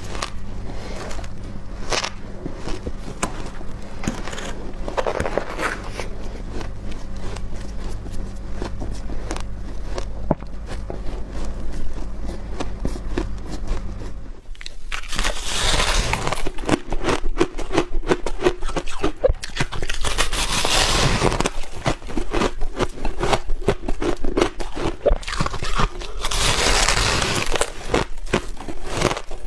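Close-up biting and crunching of powdery freezer-frost ice, a dense crackle of small crunches, with louder bouts of crunching about halfway through, at about two-thirds and near the end. A low steady hum sits under the first half.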